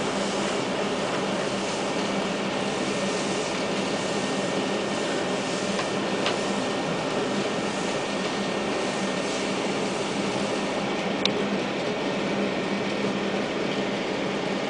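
Steady low hum and hiss of room machinery, with two faint ticks, one about six seconds in and one near eleven seconds.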